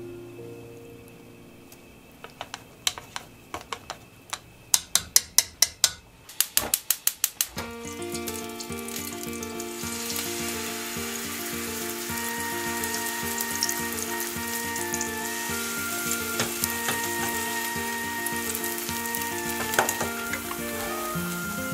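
Chopsticks tap quickly against the side of a bowl as the flour-and-water batter is whisked, faster toward the middle. Then, from about eight seconds in, the batter sizzles steadily in the hot frying pan, under background music.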